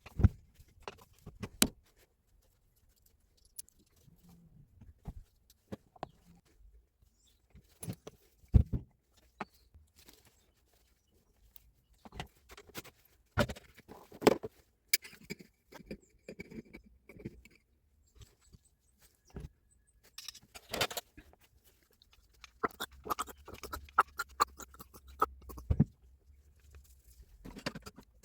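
Irregular clicks, taps and light knocks of parts and hand tools being handled, with a busier run of small rattling taps near the end.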